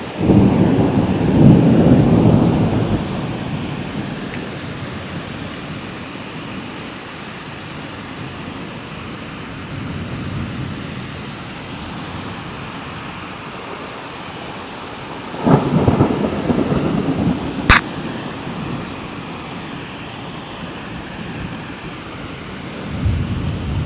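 Thunder rolling in long low rumbles: one in the first three seconds, another about fifteen seconds in, and a third starting near the end, over a steady hiss. A single sharp crack comes a couple of seconds after the second rumble.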